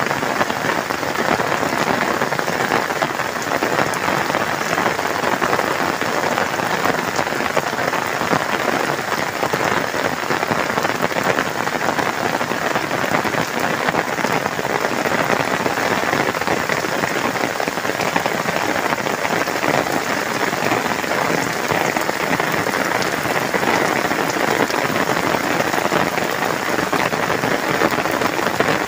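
Heavy rain falling steadily on a muddy dirt yard with standing water, a constant even hiss of downpour.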